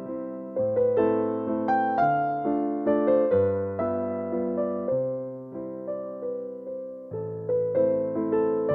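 Background music played on electric piano: a gentle melody of notes that fade after each strike, with a new note about every half second over held bass chords.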